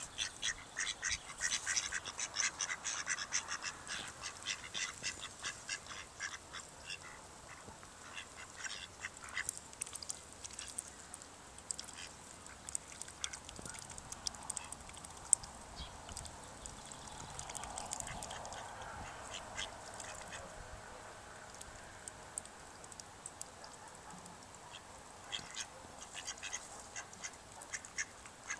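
Mallards feeding at the water's surface: bouts of rapid clicking and dabbling from their bills, dense at first, sparser in the middle and picking up again near the end.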